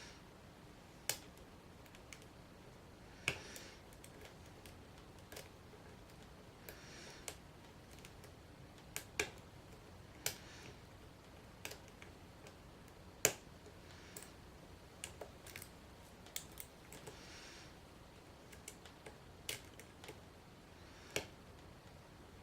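Lock pick and tension wrench working the pin stack of an ACE rekeyable padlock with serrated spool pins: faint, irregular sharp metal clicks about every second or two, with a few short soft scrapes in between.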